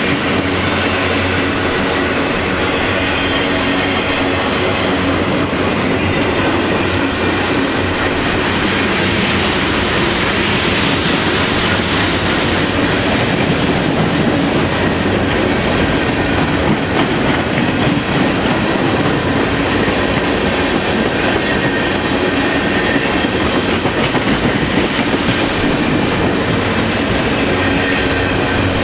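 CN freight train cars rolling past close by: a steady loud rumble of wheels on rail with clickety-clack over the rail joints and faint wheel squeal.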